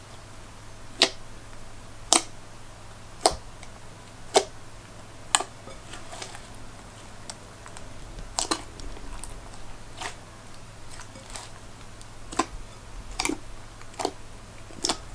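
Mixed slime, with foam beads and glitter in it, being squeezed and kneaded by hand in a glass bowl, making sharp pops of trapped air about once a second, then more irregular pops and small crackles.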